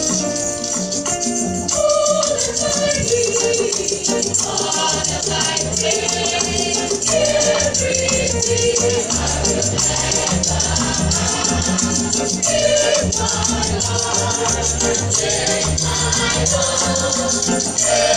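Girls' school choir singing, over a steady shaker rhythm and drums.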